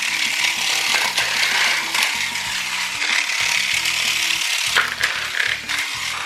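Small battery toy car's motor and gears whirring and rattling as it drives, a steady grainy mechanical buzz, with background music underneath.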